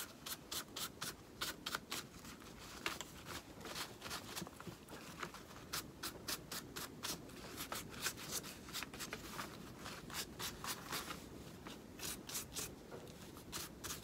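Round wax brush dabbing and scrubbing dark wax onto a fabric flower, a steady run of short brush strokes, about three a second.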